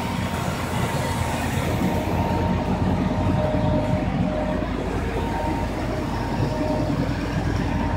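A 1920 TUEC central vacuum's motor and single impeller running steadily, pulling exhaust from an old carbureted car engine idling alongside: a constant mechanical drone with a faint, even low pulsing and a thin steady tone.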